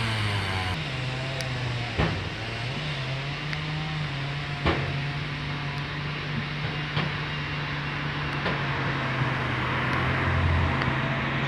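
A motor vehicle's engine running steadily, with a few sharp knocks or clicks over it, about four in all.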